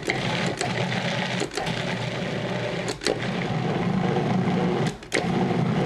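Cuisinart food processor motor running in pulses, with short breaks three times as it is switched on and off, working flour, yeast water and olive oil into bread dough until it comes together in a ball.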